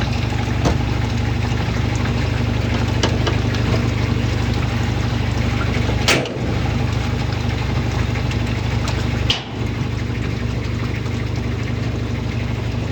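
General Electric washing machine running with a steady motor hum and water sloshing, without the scraping of the drum against a bent-in bottom panel. A few sharp clicks or knocks sound over it.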